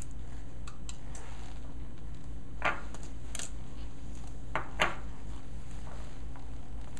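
A glass Pyrex bowl handled on a countertop, giving a few light knocks: one a little over two seconds in and two close together near five seconds. A steady low electrical hum runs underneath.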